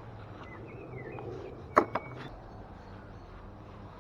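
Two sharp metallic clinks about a fifth of a second apart a little before the middle, the first with a short ring, over a faint outdoor background with a few bird chirps.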